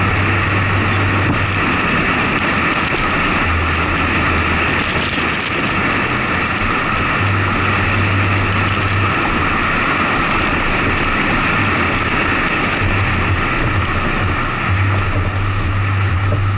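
Wind and road noise on an action camera mounted on the outside of a moving truck: a steady rush, with a low rumble that comes and goes.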